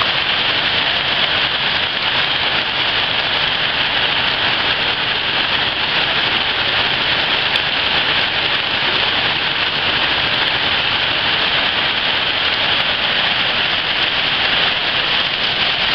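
Heavy tropical rain falling steadily, spattering onto waterlogged ground and standing puddles as an even, unbroken hiss.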